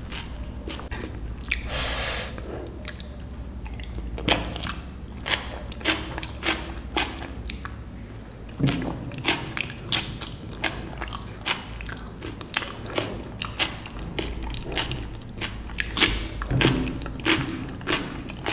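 Close-up wet chewing of rice and dal, with many short, sharp mouth smacks and clicks at an irregular pace.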